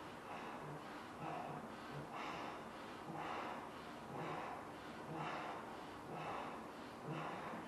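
A person blowing up a giant latex balloon by mouth: sharp gasping breaths in, then blowing into the neck, about one breath a second.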